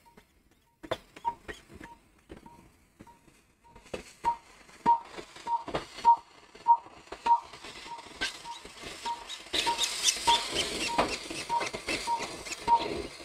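Short electronic beeps at one pitch, repeating about one and a half times a second, with scattered clicks; from about two-thirds of the way through, a crackling hiss joins them.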